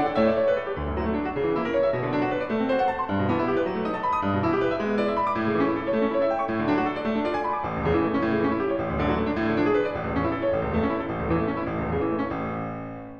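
Background piano music playing a steady run of notes, fading out near the end.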